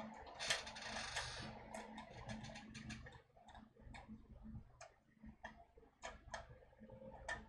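Faint irregular clicks and taps, a few a second, over a low hum.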